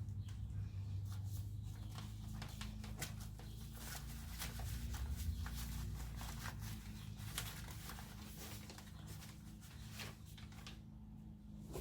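Hand-work handling sounds: irregular scrapes, taps and rustles, over a steady low hum.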